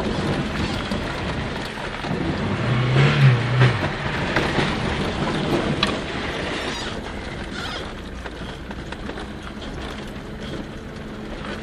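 Lada Niva 21214 on the move: the engine and the rumble of tyres over rough frozen ground, with a steady hum and a short low tone about three seconds in.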